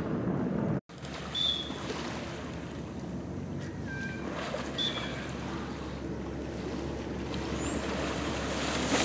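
Rushing water and spray from a dolphin towing a swimmer through a lagoon, with wind on the microphone. The sound gets louder toward the end and drops out for a moment about a second in. A few faint, short, high chirps come through in the middle.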